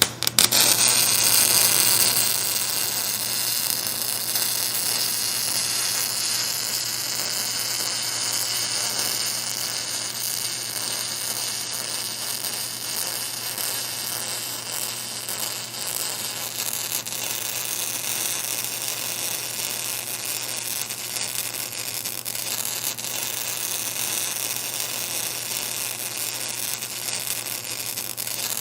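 Welding arc crackling and hissing steadily over a constant electrical hum. It starts with a few separate crackles and is loudest in the first couple of seconds.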